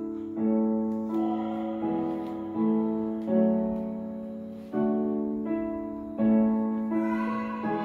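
Piano music: slow chords struck about every three-quarters of a second, each ringing on and fading before the next.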